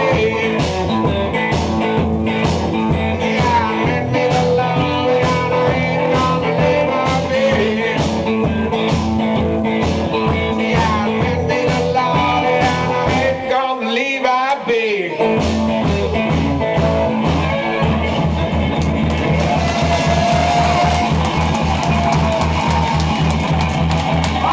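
Live blues-rock: amplified guitar and singing over a steady, driving bass-drum beat. Just past halfway the beat and low end drop out for about a second and a half, then the groove comes back in.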